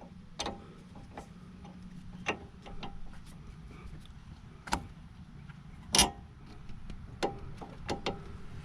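Hand tools clicking and knocking on a front stabilizer (sway bar) link as it is worked loose with a wrench and channel-lock pliers: scattered single metal clicks about a second apart, the loudest about six seconds in.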